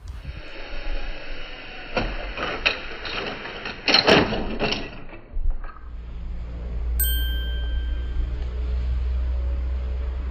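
A few sharp knocks and clatters, loudest about four seconds in, then a steady low hum with a single bright ding about seven seconds in.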